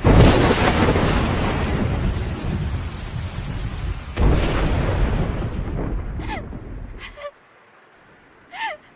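A thunder sound effect: a sudden crack followed by rolling rumble, a second clap about four seconds in, dying away about seven seconds in. Near the end, a woman's brief whimpering sobs.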